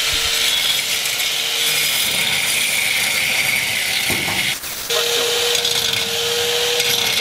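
An angle grinder's cutoff wheel cutting into a steel truck frame rail: a steady high grinding hiss over a thin motor whine, with a short dip a little past halfway before the cut carries on.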